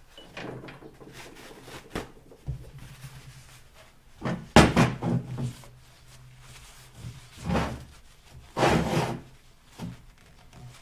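Handling noises of a metal hydraulic bottle jack on a steel workbench: knocks and scrapes as it is shifted, and a shop towel rubbing over it. These come in several short bouts, with a sharp click about two seconds in and the loudest bouts about halfway through and near the end.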